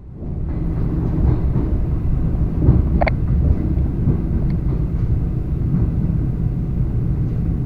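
ED4M electric train running along the track: a steady low rumble of wheels on rails, with a single short sharp clack about three seconds in.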